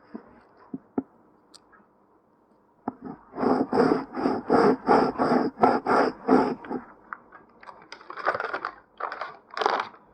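Close-miked ear-scratching ASMR: a tool scratching and scraping right at the ear in quick strokes, about three to four a second, from about three seconds in. A few slower strokes come near the end.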